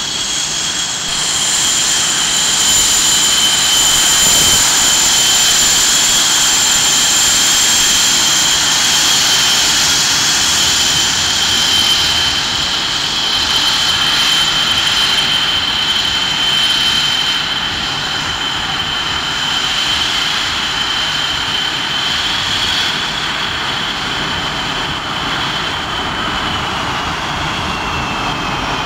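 F/A-18 Hornet jet engines running on the ground, a steady loud rush with a high-pitched whine; near the end the whine eases slightly downward in pitch.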